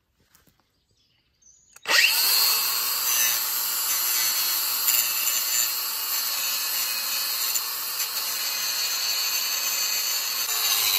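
Cordless angle grinder starting up suddenly about two seconds in and grinding a piece of scrap metal, a loud steady high-pitched grinding noise.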